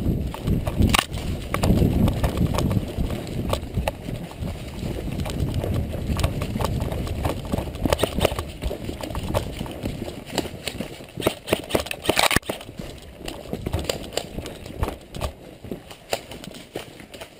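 Quick footsteps over a forest floor of dry leaves and twigs, heard close up from a head-mounted camera, with rustling and a low rumble of movement on the microphone. A sharp knock stands out a little past the middle.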